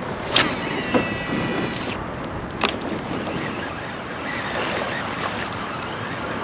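Wind and water noise around a fishing kayak, with two sharp knocks, one about half a second in and another near the three-second mark.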